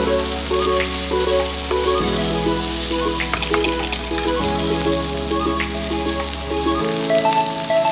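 Snow peas, carrots and onion sizzling as they stir-fry in a hot metal wok, with a spatula giving scattered clicks and scrapes against the pan. Background music with sustained notes and a bass line plays alongside.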